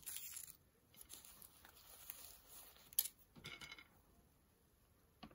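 Faint handling noises of candy corn being picked up from a plate: soft rustling, with one sharp click about three seconds in.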